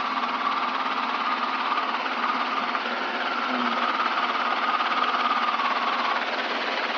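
Robinson R22 helicopter heard from inside the cockpit while hovering low: a steady din of its four-cylinder Lycoming piston engine, rotor and gearbox, with a faint high whine that wavers slightly.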